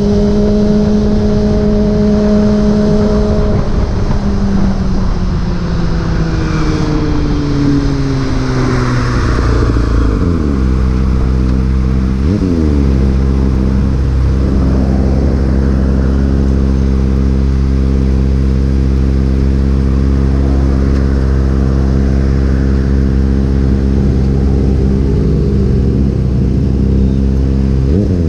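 Motorcycle engine running under way: steady at first, then dropping in pitch as the bike slows over several seconds. A quick dip and pick-up comes like a gear change, then it runs at a steady pitch, with a constant rushing noise underneath.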